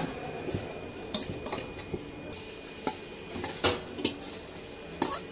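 Cleaver slicing pig ear on a thick wooden chopping board: irregular sharp knocks, then clinks of a steel bowl and utensil as the sliced meat is tipped into a plastic tub.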